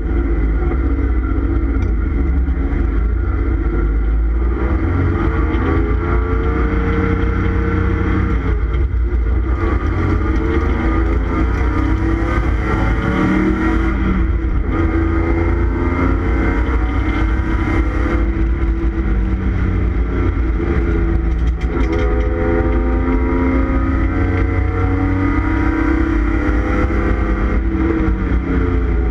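1989 Ford Taurus SHO's Yamaha-built 3.0-litre V6 under load, heard from inside the stripped race car's cabin. The revs climb and drop again several times as it goes through the gears.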